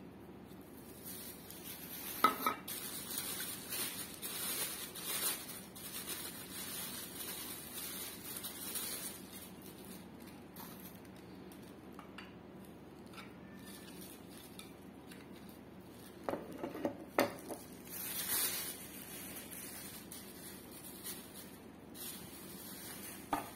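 Thin plastic bags rustling and crinkling as clear plastic stands are unwrapped and handled, with a few sharp clicks of hard plastic knocking together: once about two seconds in, a short cluster about two-thirds of the way through, and once near the end.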